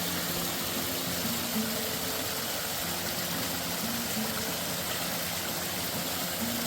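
A steady rushing noise of running water or heavy rain, even and unbroken, which cuts off suddenly at the end. Background music plays underneath.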